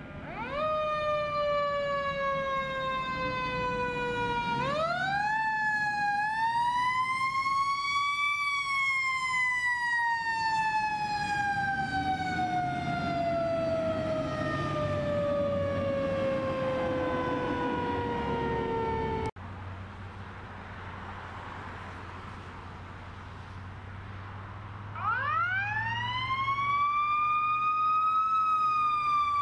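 Fire truck siren with a mechanical-style wind-up: it climbs quickly to a high wail, then coasts slowly down in pitch over several seconds, over the low rumble of truck engines. After an abrupt cut, a siren winds up again near the end.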